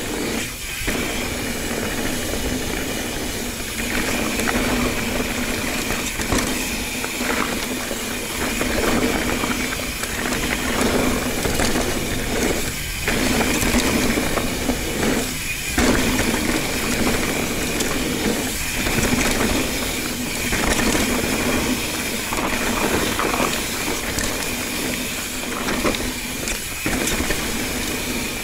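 Mountain bike riding on a forest trail: wind rushing over the microphone and tyres rolling over dirt and rock, with a steady buzz that cuts out briefly several times.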